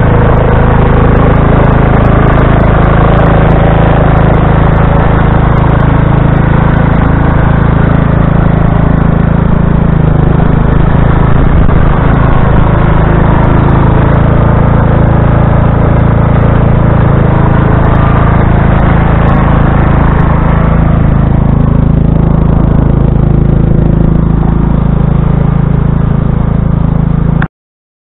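Small engine of a Craftsman riding lawn tractor running steadily while it pushes snow with a front plow blade, a loud, even hum. The sound thins out somewhat after about twenty seconds and cuts off suddenly near the end.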